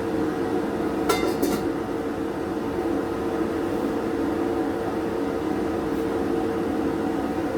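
A steady machine hum, like a small motor or fan running, with a few quick clicks about a second in.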